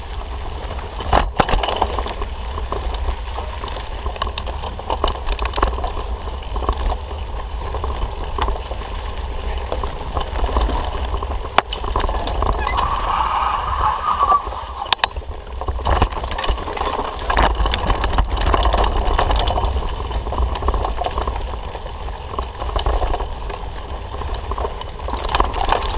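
A mountain bike ridden fast over a bumpy dirt forest track: wind rumbling on the bike-mounted camera's microphone, with tyre noise and knocks and rattles as the bike hits bumps.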